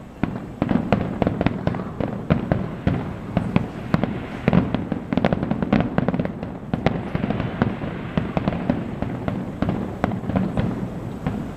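Fireworks going off in rapid succession: a dense, continuous run of sharp bangs and crackles, many overlapping, with no let-up.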